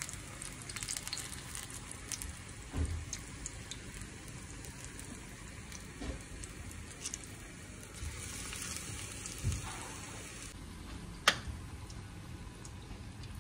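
Spinach-leaf pakoras in gram-flour batter frying in hot oil in a steel pan: a steady sizzle and crackle of the oil. A few soft knocks and one sharp click near the end rise above it.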